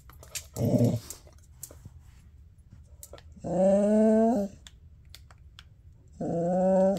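Rottweiler/German Shepherd mix dog 'talking' to beg for a treat held out of reach: a short low grumble, then two long whining calls a few seconds apart.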